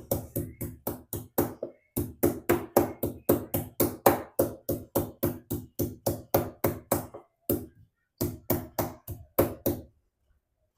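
Fresh ginger and turmeric roots being bruised by repeated pounding: quick, even thuds about four a second, with two short pauses, stopping about a second before the end.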